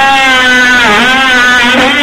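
Ridgid JobMax 12-volt cordless multi-tool running at speed, a loud steady motor whine whose pitch sags briefly about halfway through.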